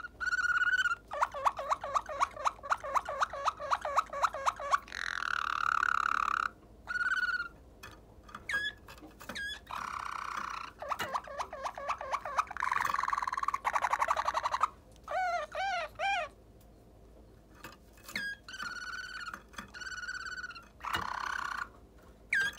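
Waterslager song canary singing one song tour after another: long fast trills, held clear notes and, about two-thirds of the way in, a short run of rising-and-falling whistles, with brief pauses between phrases.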